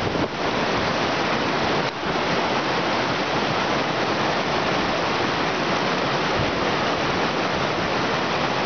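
Muddy glacial meltwater stream rushing fast over rocks: a loud, steady rush of water.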